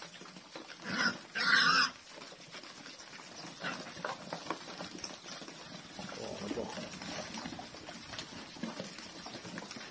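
Pigs feeding from a trough of wet mash, with a steady crackle of slurping and chomping and a few low grunts. About a second in, two loud, short squeals.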